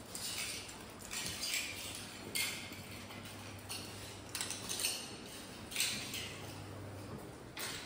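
String mop pushed across a stone floor in repeated strokes, a short swish about once a second.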